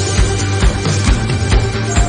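Background electronic music with a steady beat, about two beats a second.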